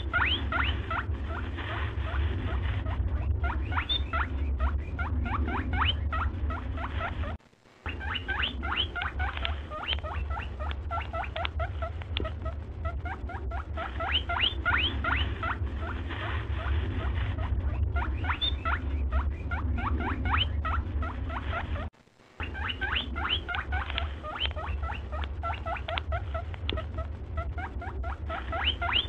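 A looped soundtrack of rapid, rising squeaky chirps, several a second, over a steady low hum. It breaks off briefly twice, about fourteen seconds apart.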